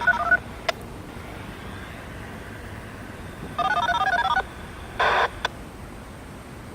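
Rapid sequences of DTMF touch-tone beeps, two short strings, the first at the very start and a longer one about three and a half seconds in, followed by a brief burst of radio static and a couple of sharp clicks. These are typical of the radio tone codes used to signal outdoor warning sirens.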